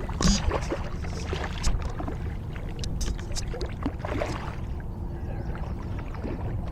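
Kayak on moving water: a steady low wash of water against the hull, with scattered small clicks and knocks of fishing gear being handled.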